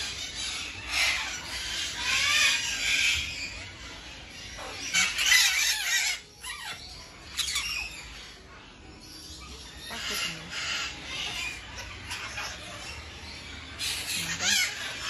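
Parrots squawking and screeching in repeated clusters of short, wavering calls, loudest about five seconds in.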